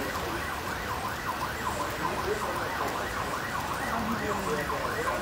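A siren wailing in fast rising-and-falling sweeps, about three a second, over a steady hiss of heavy rain and running floodwater.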